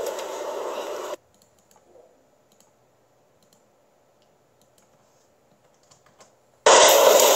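A steady hiss that cuts off about a second in, then near silence with a few faint clicks. Near the end, loud rushing wind and sea noise starts suddenly, the sound of a sailing boat under way at sea.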